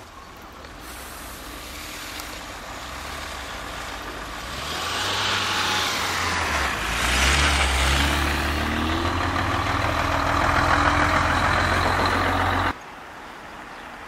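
Heavy Mercedes-Benz truck approaching and passing close on a snowy road: its diesel engine grows louder with a hiss of tyres on snow, then cuts off abruptly near the end.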